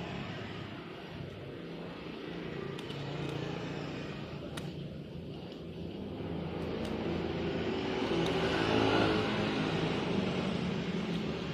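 A motor vehicle engine running, growing louder and rising in pitch about seven seconds in, then easing off near the end.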